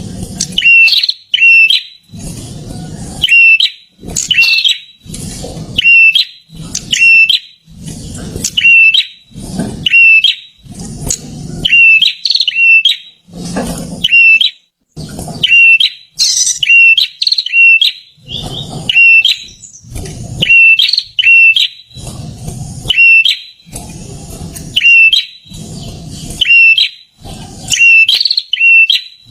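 A male prinia (perenjak) singing loud, high chirping phrases, repeated about once a second with short gaps between. Each phrase is accompanied by a low rumble.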